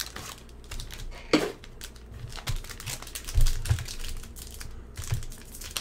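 Foil-wrapped trading card pack and its cardboard hobby box being handled and opened: light crinkling of the foil wrapper with scattered sharp taps and clicks, a few louder ones about a second and a half in and around three and a half seconds in.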